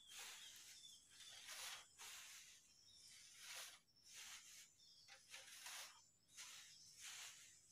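Dry wood shavings rustling as handfuls are scooped up and dropped into a metal drum being loaded as a charcoal kiln, heard as faint, irregular bursts of rustle about every second.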